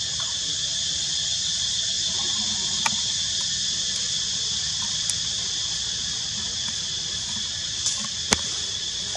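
Steady, high-pitched insect chorus droning without a break, with a few brief faint clicks.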